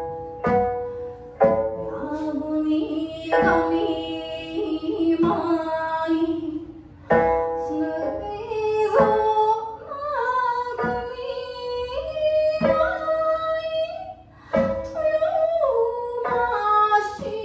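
Okinawan folk music from the Miyako islands: a woman sings a sliding, ornamented melody to her own sanshin, whose plucked notes sound through the singing.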